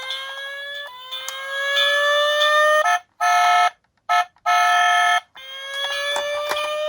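Electronic siren of a toy minicar: a wailing tone that glides slowly down and back up, interrupted near the middle by a steady beep that cuts on and off three or four times before the wail resumes. Light clicks sound over it.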